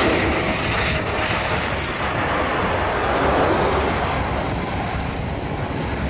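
Steady loud rushing noise of an Embraer 190 jet airliner, with a hiss that swells in the middle and fades toward the end.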